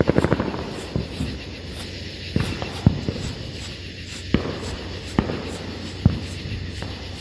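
A small consumer firework burning with a steady fizz, a quick run of crackles right at the start, then single sharp pops every second or so.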